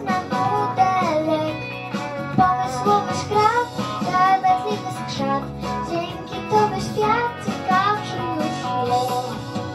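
A young girl singing a melody into a handheld microphone over backing music with guitar.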